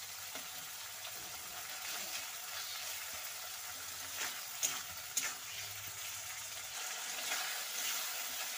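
Prawns sizzling as they are lightly fried in hot oil in a metal kadai, with a metal spatula stirring them and clicking and scraping against the pan a few times a little past the middle.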